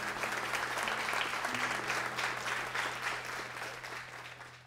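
Audience applauding: a dense patter of many hands clapping that fades near the end and then cuts off. Low, steady music notes sound faintly underneath.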